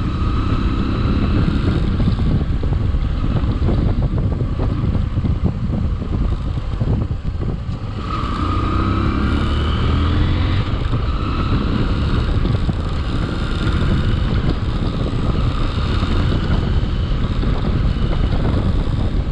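Motorcycle engine running under way, with road and wind noise. The engine note drops briefly about seven seconds in, then climbs again as the bike picks up speed.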